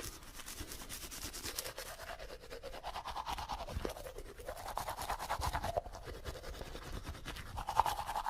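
Toothbrush scrubbing teeth: a rapid, continuous back-and-forth rasping in waves of strokes that swell and fade.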